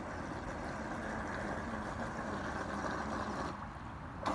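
Small radio-controlled boat's motor running on the water: a faint steady hum under a hiss of water and spray. The sound drops away about three and a half seconds in.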